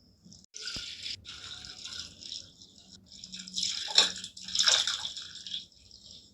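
Split milk and whey being poured through a cloth-lined strainer into a bowl, the liquid splashing and pouring, with two louder gushes about four seconds in.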